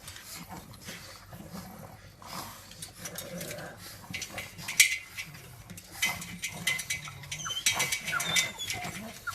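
A dog's sounds, with many short clicks and a few brief high-pitched tones about six to eight seconds in.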